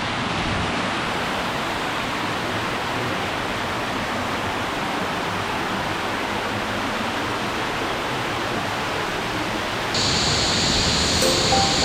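Steady rushing water. About ten seconds in it turns suddenly louder and hissier, and music notes begin near the end.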